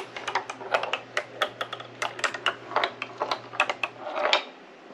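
Rapid, irregular clicking and clacking of small hard objects, several sharp clicks a second, over a faint steady low hum. Both stop about four seconds in.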